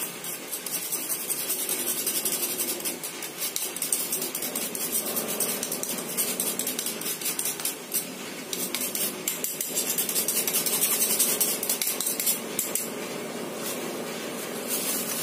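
Handheld metal mesh sieve shaken and tapped to sift powdered sugar, making a quick run of light rattling taps. The taps thin out near the end.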